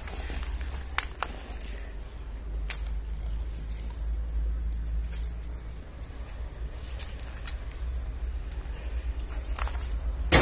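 A cricket chirping in a steady series of short pulses, about five a second, with a low rumble underneath and a few scattered sharp clicks. The loudest click comes near the end.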